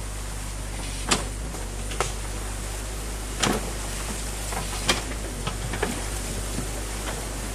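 Mini excavator bucket digging into a beaver dam in a stream: a steady rush of water and engine noise, broken by sharp cracks and knocks of branches and debris. The loudest come about a second in and just before the five-second mark, with smaller ones after.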